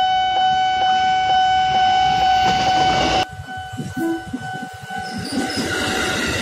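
Railway level-crossing warning bell ringing with a steady tone that pulses about twice a second. It is loud at first and drops sharply about three seconds in. Near the end the rumble of an approaching KRL JR 205 electric commuter train rises as its first car reaches the crossing.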